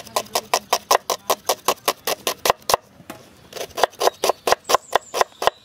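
Kitchen knife rapidly chopping peeled onion on a wooden chopping board: quick, even knocks of the blade on the board, about five a second, with a short pause about halfway through before the chopping resumes.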